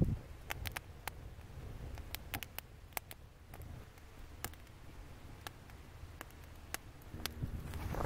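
Campfire crackling: sparse, irregular sharp pops from the burning wood over a faint low rumble, with louder handling noise starting near the end.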